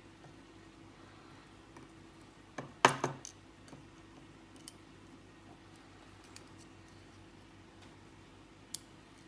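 Small metallic clicks and taps of steel tweezers and lock pins against a brass lock cylinder and a plastic pin tray, with a louder cluster of clicks about three seconds in and a couple of faint single ticks later. A faint steady hum lies underneath.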